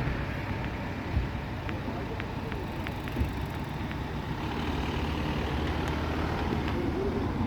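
Opicina tram running: a steady low rumble with a few sharp clicks.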